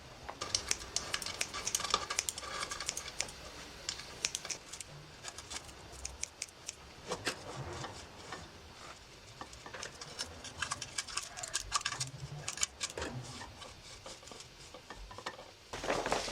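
Irregular light clicks, taps and scrapes of small hard objects being handled, with a louder cluster of taps near the end.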